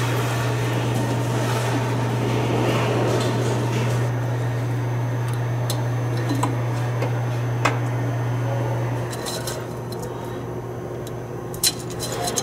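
A steady low hum, which drops in level about nine seconds in, with a few light clicks and clinks of metal parts being handled during coolant filter work.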